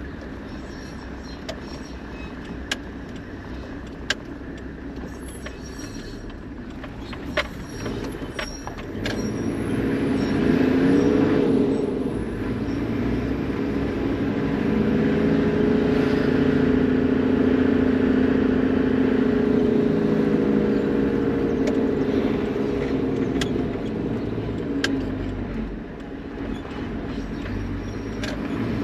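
Toyota Land Cruiser HZJ78 Troopy driving, with a few sharp clicks in the first seconds. About nine seconds in, its engine hum rises and wavers, then holds steady and louder before easing off near the end.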